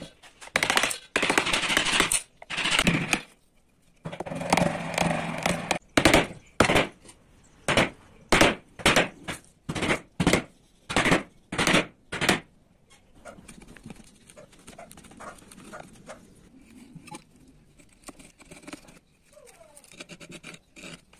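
Wood chisel cutting into a plank: loud crunching and splitting at first, then a run of sharp cracks about every half second as the blade is driven in. After that comes quieter, fine scraping and ticking as the carving is pared smooth.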